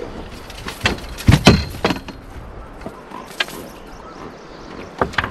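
Several knocks and thumps, the loudest about a second and a half in, as a blue catfish is dumped out of a landing net onto the boat floor.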